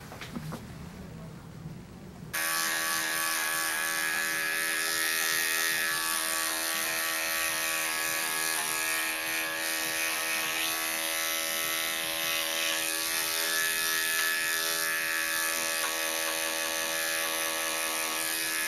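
Electric dog-grooming clippers running with a steady hum as they shave a matted coat off close to the skin. The hum comes in suddenly about two seconds in, after a quieter stretch.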